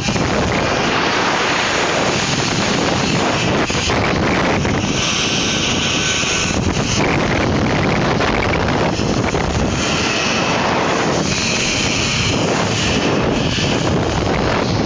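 Steady loud rush of wind over the microphone during a zip-wire descent, mixed with the trolley's pulley running along the steel cable. A higher hiss swells about five seconds in and again later.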